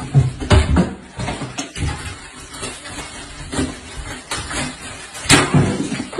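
Letterbox flap in a front door clattering and knocking again and again as a cat hangs from it and pulls at the post, with the loudest bang about five seconds in.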